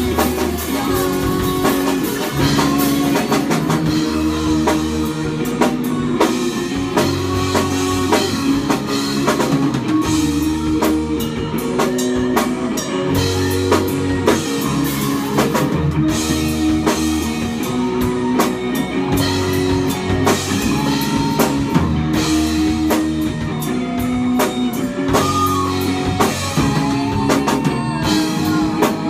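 A rock band playing live together: two electric guitars and a drum kit, with the drums striking steadily under sustained, distorted guitar chords.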